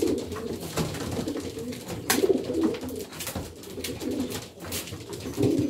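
Domestic pigeons cooing, a low throbbing that swells and fades over and over, with a few sharp taps among it, the loudest about two seconds in.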